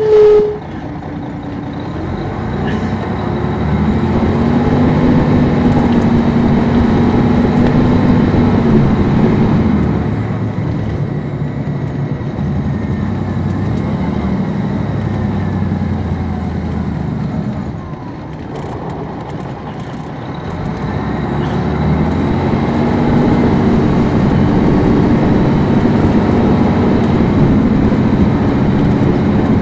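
Turbocharged Detroit Diesel Series 60 inline-six of an MCI D4500 coach heard from on board, pulling hard as the bus accelerates, with a rising turbo whistle over the engine. It eases off about ten seconds in, dips near the middle, then pulls up again with the whistle returning. A brief loud tone sounds right at the start.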